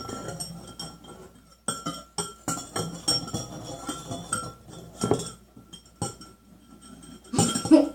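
A utensil stirring slime mixture in a bowl, scraping and clinking irregularly against the bowl's sides as it works around the edges.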